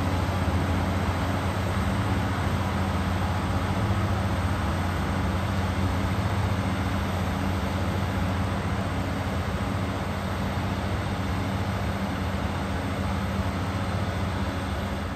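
Cog railway train's diesel engine running steadily, a low even hum.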